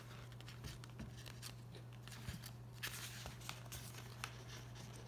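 Paper pages of a book being turned and handled: faint rustles and small crackles of paper, with a few soft clicks.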